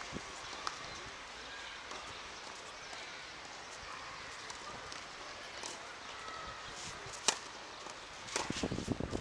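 Tennis rally on a clay court: a quiet stretch while the serve is readied, then the sharp pop of a racket striking the ball about seven seconds in, followed by further hits and a short vocal sound near the end.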